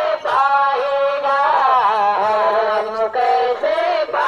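Hindu devotional bhajan kirtan singing, with long held notes that waver and bend in pitch.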